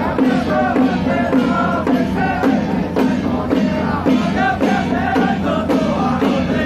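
Temple-procession music: brass hand cymbals clashing in a steady beat, with drums and a melody line over them.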